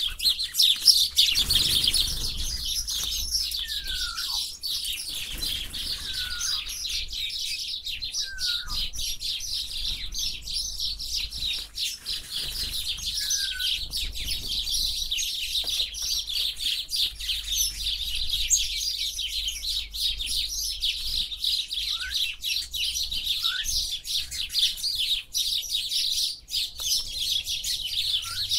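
Birds chirping: a dense, continuous high-pitched chatter, with short separate whistled notes sliding down or up every few seconds.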